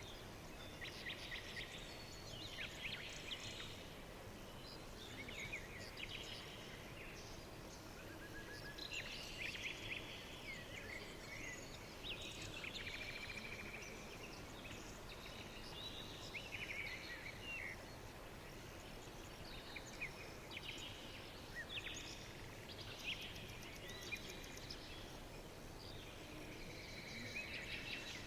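Songbirds chirping and trilling in short, repeated phrases, one after another every second or two, over a steady background hiss.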